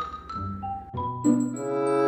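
Background music played on mallet percussion such as a vibraphone or marimba, with notes struck and left to ring.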